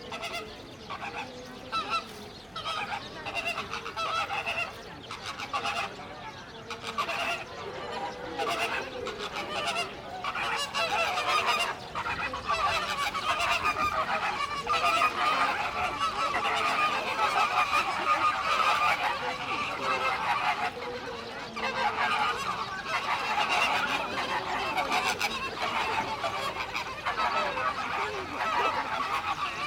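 A group of birds giving continuous, overlapping goose-like honking calls.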